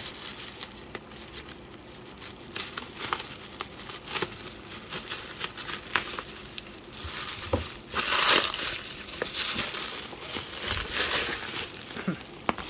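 Bubble wrap and plastic packaging crinkling and crackling as it is cut open and pulled off a boxed keyboard, with a louder rip about two-thirds of the way through.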